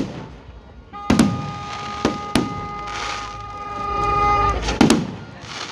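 New Year fireworks bursting: about six sharp bangs, some in quick pairs, with a steady horn-like tone held through the middle.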